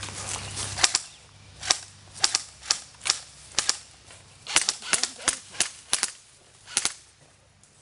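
Airsoft rifle firing single shots: about a dozen sharp, irregularly spaced pops, several coming in quick pairs.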